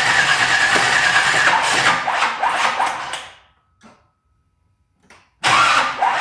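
Built 350 crate V8 cranking on its starter without catching: a whine with a rapid cranking beat that slows and dies away about three and a half seconds in, then after a two-second pause a second crank starts abruptly near the end. The cranking sounds a little wonky, and the failure to fire could mean the ignition timing is way off.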